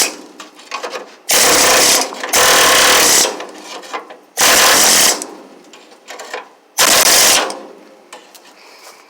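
Air chisel hammering at rusted sheet metal on a car's inner rocker panel, cutting it off in five short bursts of rapid blows, each under a second.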